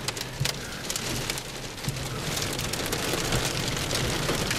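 Heavy rain pelting the windshield and roof of a vehicle, heard from inside the cabin, with scattered sharp hits among the steady rush and growing slightly louder.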